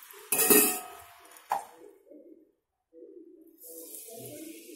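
Murukku frying in hot oil in a steel pan: a metal slotted ladle clanks against the pan with a short ringing, then clicks once more about a second later. From about three and a half seconds in, the oil sizzles steadily around the frying dough.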